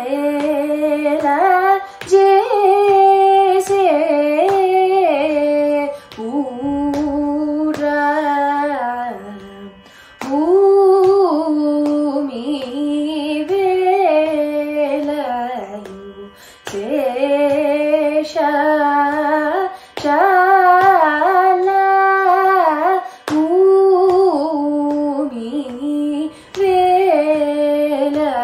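Female Carnatic vocalist singing a varnam in Panthuvarali (Kamavardhini) raga, set to Adi tala. The long phrases are full of sliding, ornamented pitch bends and are broken by short breaths every few seconds, over a steady drone.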